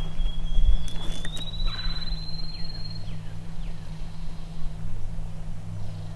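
Wild turkey gobbling once, a short rattling call, over a long high whistled songbird note and a few brief chirps.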